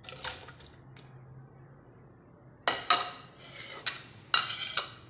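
A spoon scraping and clinking against the inside of an aluminium pressure cooker: a few faint clinks at first, then several louder, ringing scrapes in the second half.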